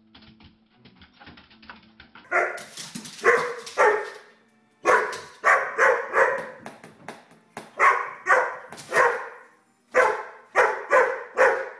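A dog barking in loud, short barks, in bunches of two to four, about fourteen in all, starting about two seconds in; faint quick clicking before the barking starts.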